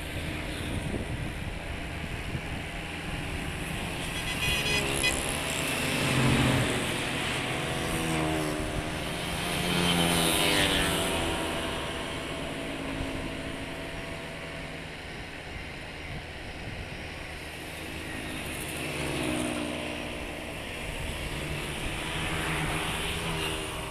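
Diesel farm tractor engine running under load as its front loader bucket works into a pile of bricks and earth. The revs rise and fall, swelling loudest about six and ten seconds in.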